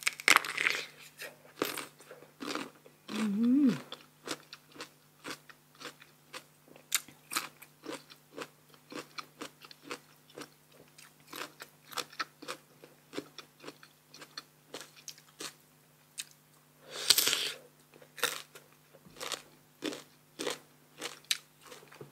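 Close-miked eating of crisp, sour green mamuang bao mango: a loud crunching bite at the start and another about 17 seconds in, with a steady run of crisp chewing crunches between them.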